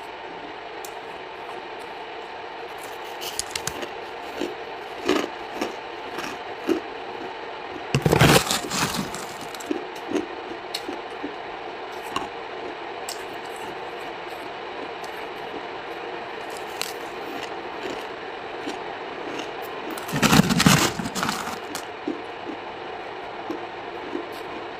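Close-miked crunching of hard frozen buckwheat chunks being bitten and chewed: scattered small crackles, with two loud crunching bites about eight seconds in and about twenty seconds in, over a steady low hum.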